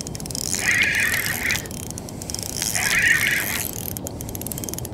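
Spinning reel being cranked to wind in a hooked fish, its gears making a fast mechanical clicking whir. Two buzzing bursts about a second long come through, about one second in and again about three seconds in.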